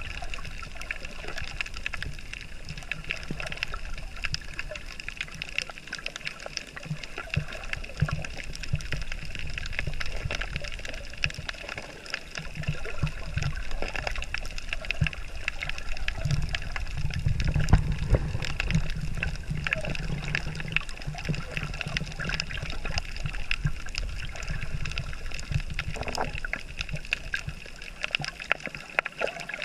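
Underwater reef ambience heard through a submerged camera: muffled water movement and a low rumble, with constant faint crackling clicks. The rumble swells a little past the middle.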